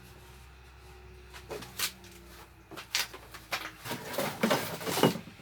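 Handling noises: a few separate clicks and knocks, then a busier clatter of objects being picked up and moved from about four seconds in, as of someone rummaging for gear.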